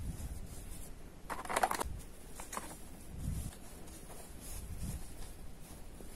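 Hands handling a cloth drawstring pouch and a clip-on phone lens: soft rustling and light bumps, with the loudest rustle about a second and a half in.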